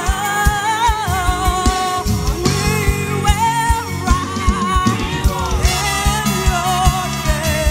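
Live gospel band: a woman sings lead over drum kit and band, with a steady drum beat.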